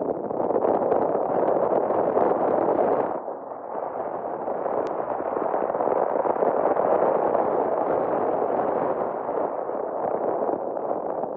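Steady rush of wind on the microphone and road noise from a moving car, dipping slightly about three seconds in.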